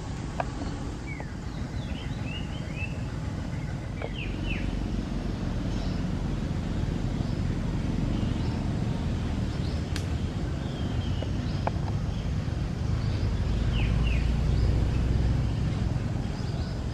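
Outdoor ambience: a steady low rumble that swells a little near the end, with short high chirping calls and a few faint clicks scattered through it.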